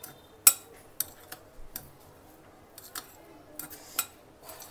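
Light, irregular clinks against a glass mixing bowl as a paneer, cheese and corn filling is mixed by hand: about seven sharp taps, the loudest about half a second in.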